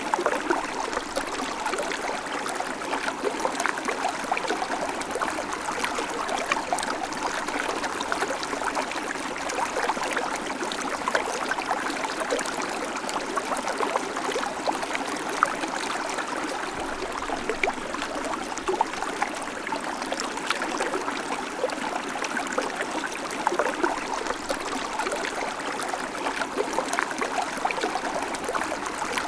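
Babbling creek: water running and trickling over stones in a steady, continuous rush with fine splashing detail.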